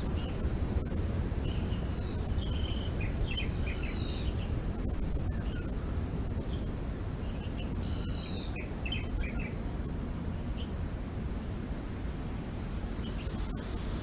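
Forest soundscape: insects trill in one steady high-pitched drone, with short bird chirps in small clusters, the busiest about a second in and again about eight seconds in, over a low background hum.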